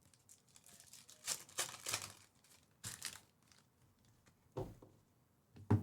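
Crinkling and tearing of a foil trading-card pack wrapper being ripped open and handled, in several short rustles.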